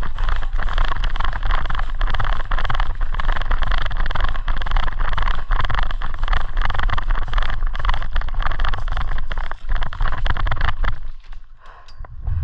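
Loud, continuous rustling and buffeting noise right against the microphone, with many irregular clicks, that drops away about eleven seconds in.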